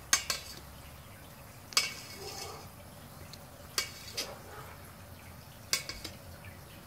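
Long metal spoon knocking against the side of a stainless steel brew kettle four times, about two seconds apart, while stirring hops into the wort, over the steady hiss of a rolling boil.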